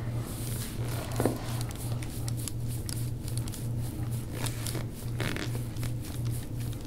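Deep-tissue forearm massage on the upper back: scattered soft rubbing and crackly friction sounds of skin and fabric under pressure, over a low steady pulsing hum.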